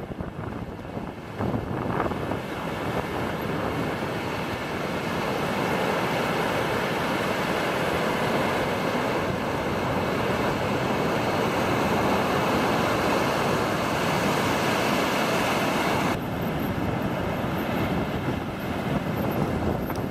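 Ocean surf breaking and washing up a shallow beach, mixed with wind buffeting the microphone as a steady rushing noise. The noise shifts abruptly about three-quarters of the way through.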